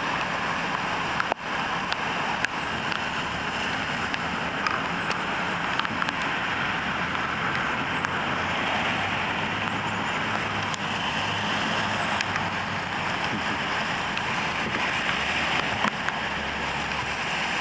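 Steady rushing noise of road traffic with wind on the microphone, broken by a few sharp clicks near the start.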